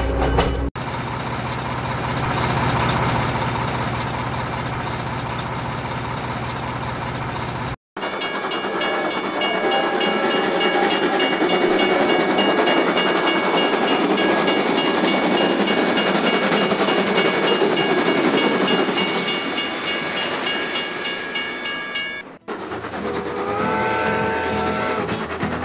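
Toy freight train running, with fast, even clicking and steady whining tones. Near the end a horn sounds in several tones at once.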